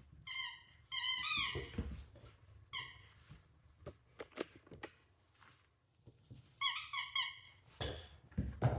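Squeaky toy squeaking in short high bursts as a puppy chews and squeezes it, in a few clusters, with soft knocks in between.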